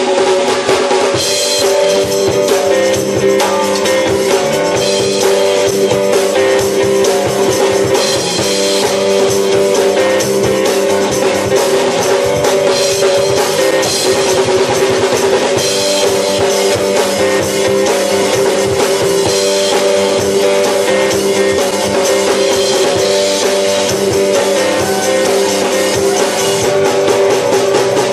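Live soul band playing: drum kit keeping a steady beat under electric guitar, bass and sustained keyboard notes. The amateur recording sounds rough and poor.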